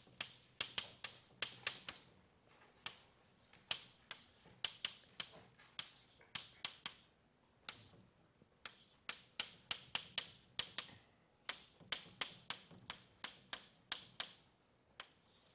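Chalk writing on a blackboard: runs of quick, sharp taps and short strokes as symbols are written, with brief pauses between runs.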